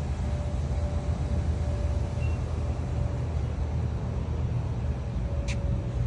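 Steady low rumble of outdoor background noise with a faint steady hum, broken by one short sharp click near the end.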